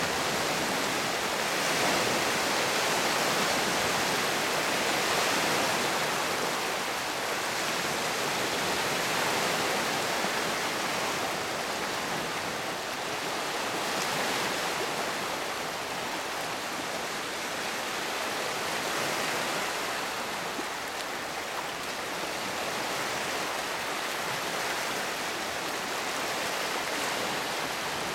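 Small lake waves washing steadily over and around flat shoreline rocks, swelling and easing every few seconds.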